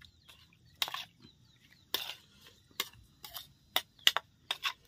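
Metal spoon stirring food in a ceramic bowl, clinking against the bowl about eight times at irregular intervals, with some short scraping smears. Faint bird chirps are heard behind it.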